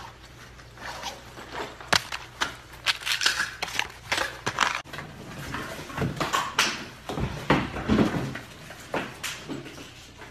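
Irregular rustling, clicking and knocking of objects being handled and stuffed into a backpack and under clothing.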